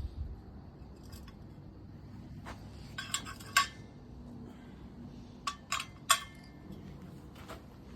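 A handful of sharp metallic clinks in two short clusters, metal tapping on metal, the loudest about three and a half and six seconds in.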